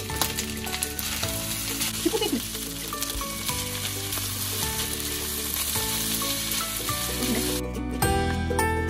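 Fried rice with shrimp and vegetables sizzling in a hot frying pan while it is stirred and tossed with a spatula, over background music. The sizzling cuts off suddenly near the end, leaving the music alone.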